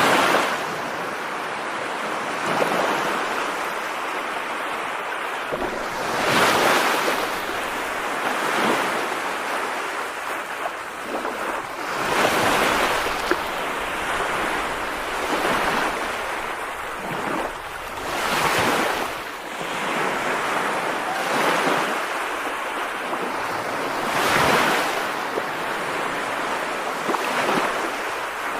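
Steady rushing noise of rain, swelling louder every few seconds as if in gusts.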